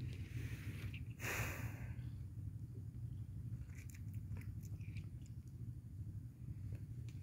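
Tabby kitten chewing and play-biting a person's hand, with a brief noisy rustle about a second in and scattered small clicks, over a steady low hum.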